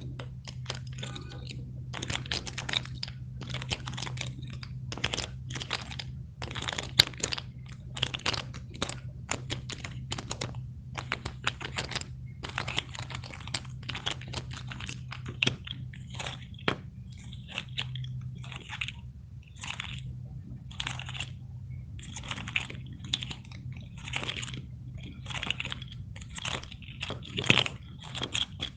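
Fidget toys handled close to the microphone: a dense run of short crisp clicks and crunchy taps, several a second with brief pauses, over a steady low hum.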